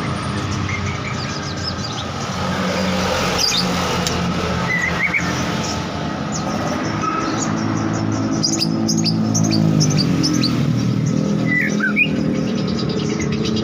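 A motor vehicle engine runs steadily with a low hum, its pitch shifting around the middle. Over it a murai songbird gives short, scattered chirps and whistles, a young bird practising its song.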